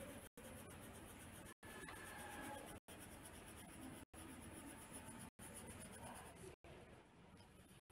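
Faint scratching of a pen tip on paper as small areas of a drawing are coloured in, broken by brief silent dropouts about every second and a quarter.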